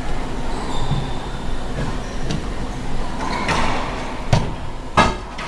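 Steady rumbling machinery noise with two sharp knocks, about two-thirds of a second apart, near the end.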